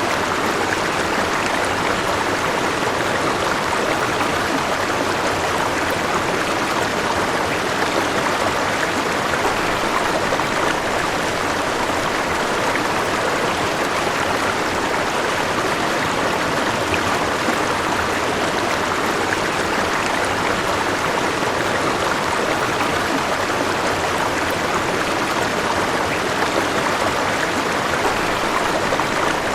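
River water flowing and rushing over stones, a steady, even babble.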